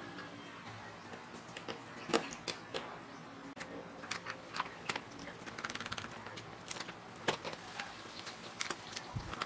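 Hand screwdriver turning small screws in a plastic push-button hoist control box, and the plastic lid being fitted: light, irregular clicks and ticks, with a quick rattle of ticks about halfway through.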